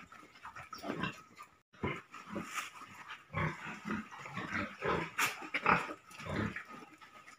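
Fattening pigs grunting: a string of short, irregular grunts.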